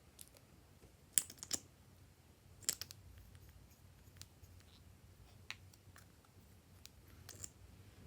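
Glossy slime being worked by hand, giving sharp sticky clicks and pops. There is a quick cluster of three about a second in, another near three seconds, and softer scattered ones later.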